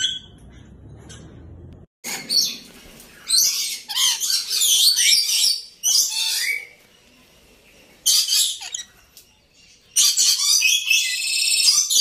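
Rainbow lorikeets calling in loud, shrill bursts of screeching chatter, several bursts of one to two and a half seconds each; the calls begin about two seconds in, after a faint low rumble.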